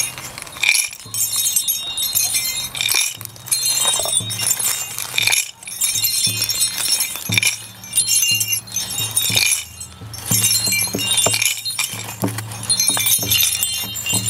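Small metal jingles shaken in repeated bursts, ringing brightly about every second or two, over a steady low hum.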